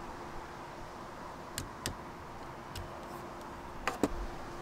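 A handful of sharp clicks from a torque screwdriver, set to 2.5 Nm, turning a hex screw in a 3D-printed PLA test lever. The loudest two come close together near the end, over a faint steady hum.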